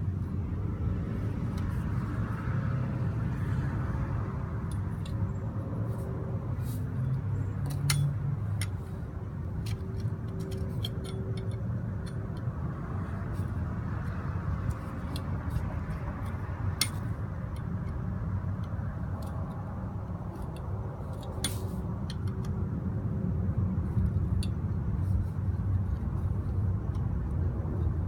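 Torch flame running steadily while copper pipe joints are heated for soldering, with scattered light clicks and clinks.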